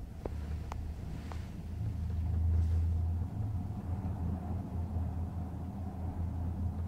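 Low steady rumble of a gondola cabin travelling along its cable, swelling about two to three seconds in, with a few light clicks in the first second and a half.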